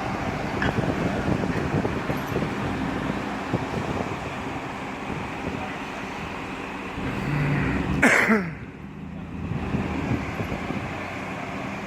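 Steady road traffic noise from passing cars, with a loud whoosh about eight seconds in that falls quickly in pitch.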